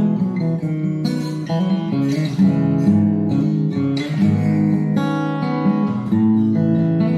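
Acoustic guitar strung with D'Addario EXP26 .011-gauge coated phosphor bronze strings, played as a sound test: ringing chords strummed, changing about every second.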